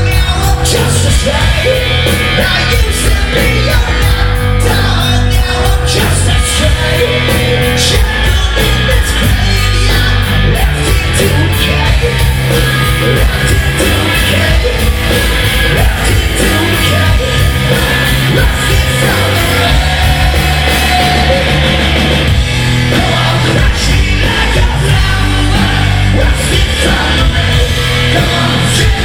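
Live punk rock band playing loud, with distorted guitars, bass and drums, and a singer shouting, heard as a distorted audience recording.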